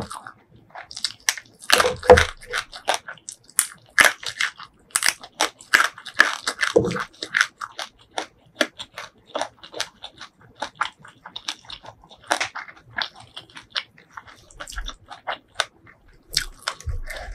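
A person chewing food close to the microphone: a steady run of short, irregular crunches, several a second.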